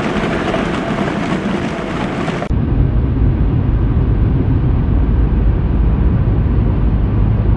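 Steady outdoor noise: a broad hiss that gives way abruptly, about two and a half seconds in, to a heavy low rumble.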